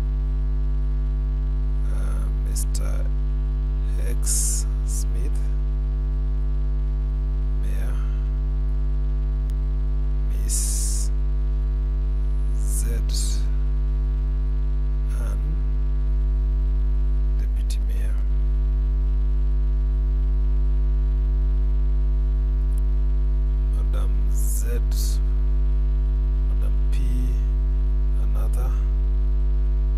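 Steady electrical mains hum, low and constant, with a few short, irregularly spaced clicks and hisses over it.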